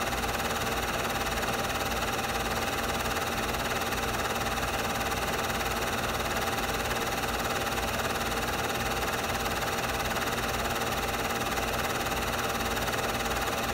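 Steady machine hum and hiss that never changes, typical of a Super 8 film projector's motor running while the silent film is played back.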